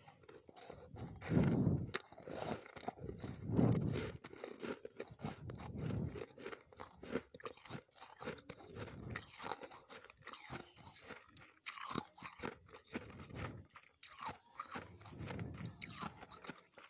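Freezer frost being chewed: a run of close, crunchy bites and crackles, the two loudest crunches in the first four seconds.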